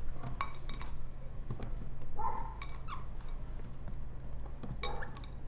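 Cherry tomatoes being set by hand into a stainless-steel pan of cut vegetables, with a few light, high-ringing clinks from about half a second in, over a steady low hum. Short animal calls sound faintly in the background.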